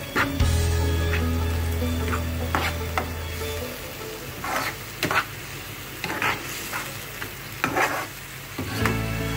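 Spiced onion masala sizzling in a nonstick frying pan as a slotted spatula stirs and scrapes it in quick, irregular strokes: the masala being fried down (koshano). A low steady hum sits under the first few seconds.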